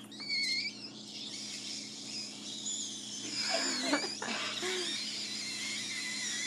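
High, wavering squeaks of air forced out hard between lips and the hole in a raw egg's shell as a man blows the egg empty, briefly near the start and again for a couple of seconds in the middle. A steady low hum runs underneath.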